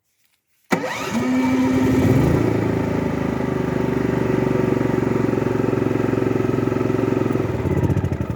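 Gentech 6 kVA inverter generator's engine starting suddenly about a second in, its pitch rising once as it settles into a steady run. It is shut off near the end and begins to run down.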